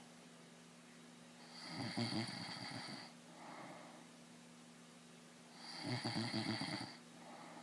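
A sleeping man snoring: two loud snores about four seconds apart, each followed by a softer breath.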